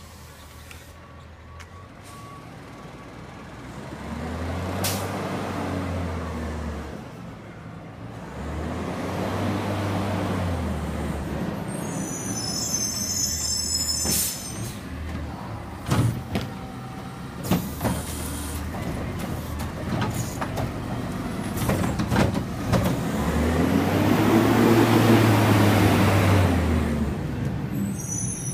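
Front-loading garbage truck with a Curotto-Can automated cart arm: its diesel engine revs up and back down three times, each for about three seconds, as the hydraulics work the arm. In between come short air-brake hisses and a few sharp knocks.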